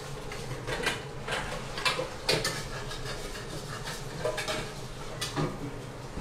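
Light kitchen clatter: a handful of short clinks and knocks of metal utensils and cookware on the counter and hob, one ringing briefly about four seconds in, over a steady background hiss.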